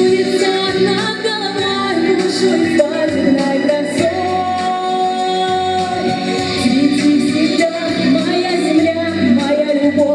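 A song: singing over instrumental accompaniment, with long held notes.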